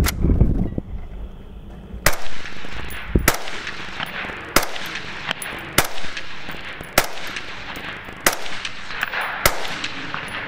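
Suppressed Steyr AUG A2 rifle in 5.56 with a SilencerCo Saker suppressor, fired in single shots, about eight in all, roughly one every 1.2 seconds. Each shot trails off in an echo.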